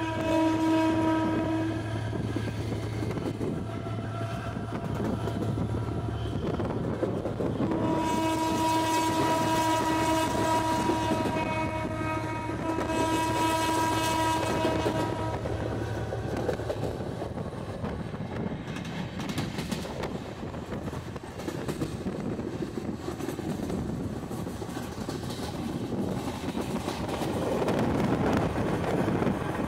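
EMD GT22 diesel-electric locomotive under way, its engine droning and its wheels clattering over the rails. Its air horn sounds a short blast at the start and a long blast from about eight to fifteen seconds in.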